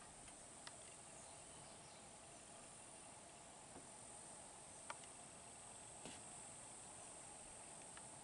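Faint, steady high-pitched insect trilling, with a few soft clicks.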